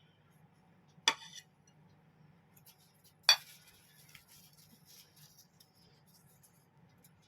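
Dishware clinking twice, sharp and ringing: once about a second in, again about two seconds later, with faint small handling clicks in between.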